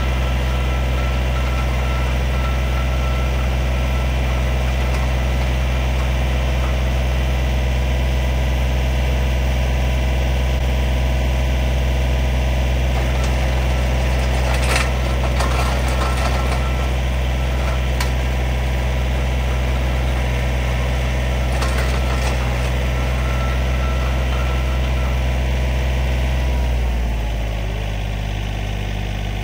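John Deere compact tractor's diesel engine running steadily while it powers a three-point hitch post hole digger auger boring into clay, with a few sharp knocks midway. Near the end the engine speed drops and it runs lower and quieter.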